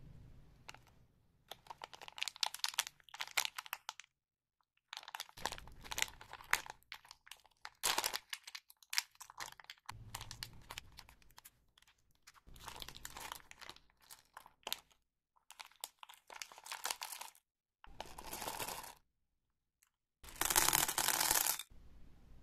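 Plastic candy wrappers being crinkled and torn open by hand, in a series of crackly bursts broken by short silent gaps; the loudest tear comes near the end.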